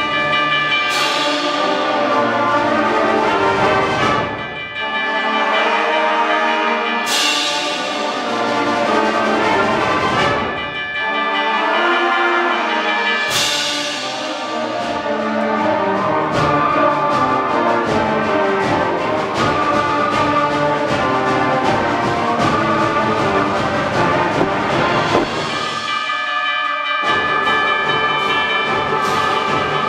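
School concert band of brass, woodwinds and percussion playing loudly: big sustained chords hit with sharp cymbal-like accents about every six seconds, then a busier rhythmic stretch. Near the end the low instruments drop out briefly before the full band comes back in.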